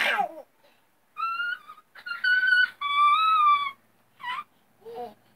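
Small children's high-pitched squeals: three long, held squeals starting about a second in, then two short, lower cries near the end.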